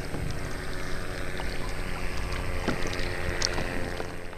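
Water lapping against an anchored fishing kayak's hull, with wind rumbling on the microphone and a faint steady hum underneath.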